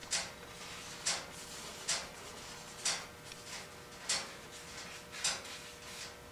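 Short, dry rubbing swishes about once a second as primer is wiped along the edge of a plastic ATV fender by hand.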